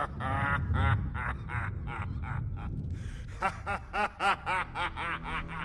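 Laughter: a run of quick 'ha' syllables, each rising and falling in pitch, about four a second through the second half.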